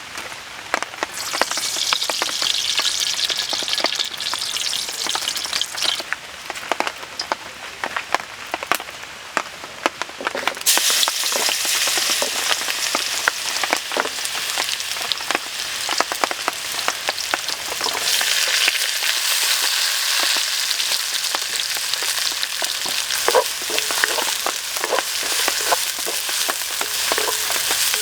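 Food stir-frying in a hot pan: steady sizzling with frequent clicks and scrapes of a stirring utensil. The sizzle gets louder and brighter about ten seconds in.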